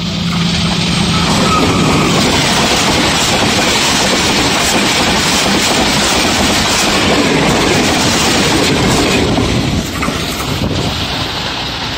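Pakistan Railways ZCU-20 diesel-electric locomotive and its passenger coaches passing close by at speed. The sound swells over the first couple of seconds as the locomotive arrives, holds as a loud, steady noise of the coaches' wheels running on the rails, and drops off about ten seconds in as the end of the train goes by.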